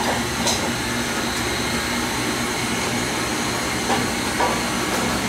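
Steady, loud rushing noise of a kitchen's background machinery, with a few faint clicks.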